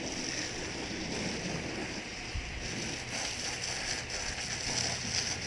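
Water from a garden hose spray nozzle hissing steadily as it rinses down the hull of an aluminum fishing boat, with spray spattering on the metal.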